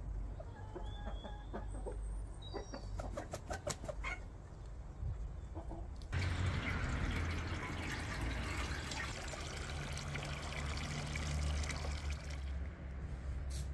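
Chickens clucking and calling in a poultry yard. About six seconds in, this gives way suddenly to a steady stream of water pouring and splashing into a large aluminium cooking pot as it fills.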